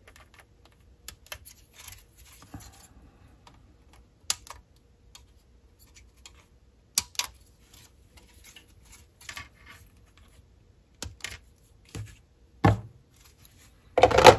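Small plastic model-kit parts being cut from the sprue and handled: scattered, irregular sharp clicks and taps, with a louder knock near the end.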